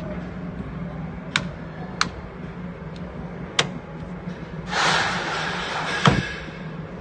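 Three sharp clicks a second or so apart, then about a second and a half of rustling noise that ends in a single knock, over a steady low hum.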